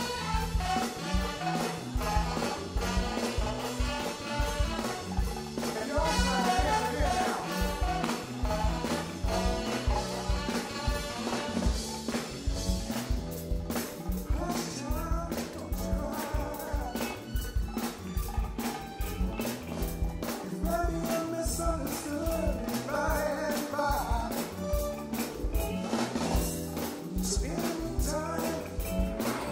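Live soul band playing, with a drum kit keeping a steady beat under a repeating bass line, and singing over it.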